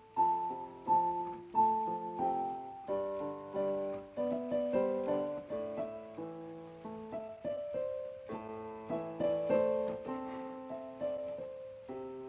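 Background piano music: a gentle melody of struck notes, each fading after its attack.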